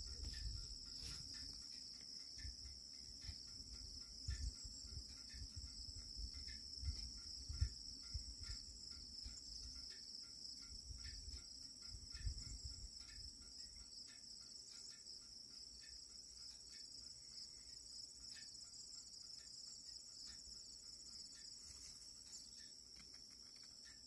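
Steady high-pitched chorus of insects in the grass, with low rumbles and thumps on the microphone in the first half.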